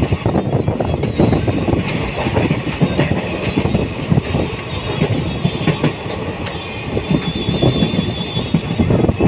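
Passenger train running along the track, heard from an open coach doorway: a steady rolling rush with the irregular clickety-clack of the wheels over the rails.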